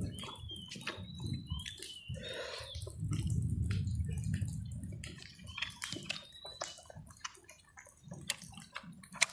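Close-up wet chewing and lip-smacking of a person eating chewy beef offal, full of small sticky mouth clicks, with a low muffled swell about three seconds in.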